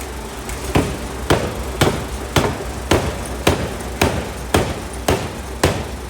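750 kg pneumatic forging hammer striking a hot steel block in a steady rhythm of about two blows a second, starting about a second in, over a steady low machine hum.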